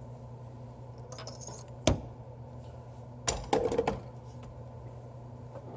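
Small hard parts or tools handled under the hood: a single sharp click about two seconds in, then a short clatter of knocks a second later, over a steady low hum.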